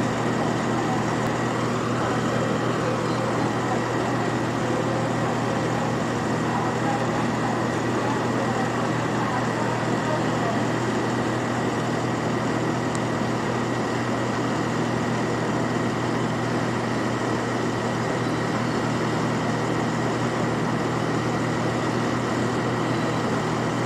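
Steady drone of a diesel engine running at a constant pitch and level, with an even hum of outdoor noise over it.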